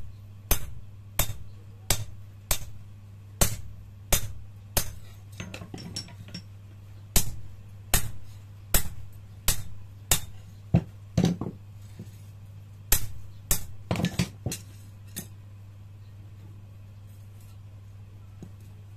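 Hand hammer forging a red-hot machete blade of leaf-spring steel on a small steel post anvil: sharp ringing blows about every two-thirds of a second, a short pause about ten seconds in, a few more irregular blows, then the hammering stops about fifteen seconds in. A steady low hum lies under it all.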